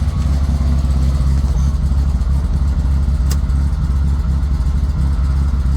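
Volkswagen Type 3 Squareback's air-cooled flat-four engine running steadily at idle through a newly fitted Dynomax race bullet muffler, with its exhaust leaks just sealed. A single short click sounds about three seconds in.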